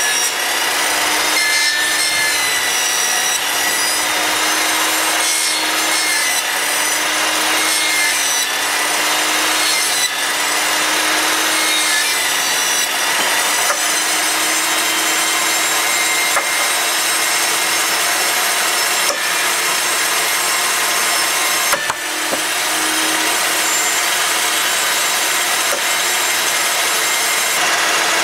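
Portable benchtop table saw running at full speed with its blade raised high, a loud, steady motor and blade whine. A brief knock comes about three quarters of the way through.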